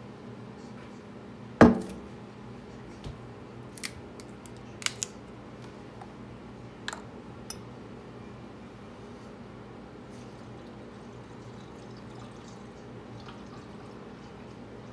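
Glassware handled at a kitchen counter: one sharp knock, then several light glass clinks over the next few seconds. Near the end, orange juice is poured into a large martini glass.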